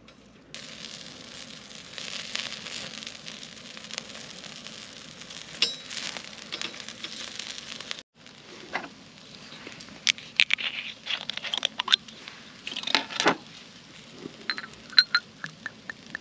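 Meat skewers sizzling on a wire grill over glowing charcoal: a dense, steady crackle, then sharper pops and snaps in the second half. Near the end comes a quick run of glugs as liquor is poured from a glass bottle into a small glass.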